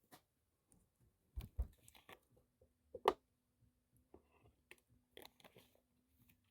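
Faint scattered clicks and small handling noises, with louder taps about one and a half and three seconds in, and a faint steady hum in the second half.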